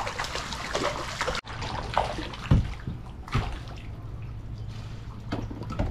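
Hooked sheepshead thrashing and splashing at the water's surface beside a kayak. After a sudden cut come two or three dull thumps.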